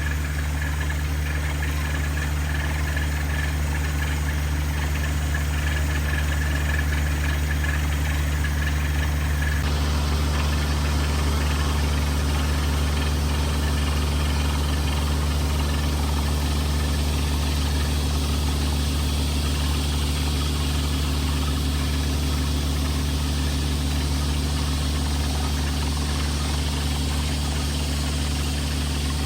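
Well-drilling rig's engine running steadily at constant speed, a loud even hum. About ten seconds in, a hiss over it grows a little stronger.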